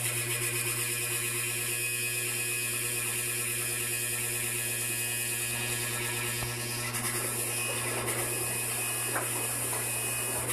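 Electrolux LSE09 washer-dryer making a loud, steady buzzing hum as it starts to fill with water. The owner calls the noise unbearable and counts it among the machine's factory defects.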